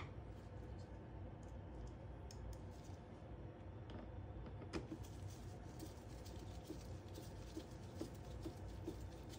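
Faint clicks and handling noise of hard plastic parts on a robot vacuum's underside as the side brush is fitted, with one sharper click about five seconds in, over a low steady hum.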